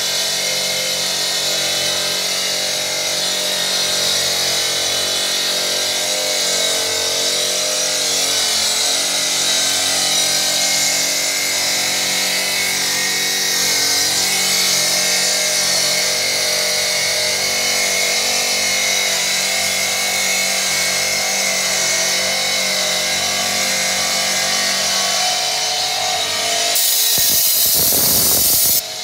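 Granite-cutting machine's saw blade running through stone: a steady motor hum with a strong high hiss. Near the end the hiss grows louder and brighter for a moment.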